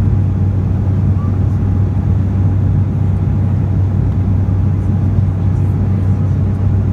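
Jet airliner cabin noise in flight above the clouds: a loud, steady low drone with a faint steady hum tone over it.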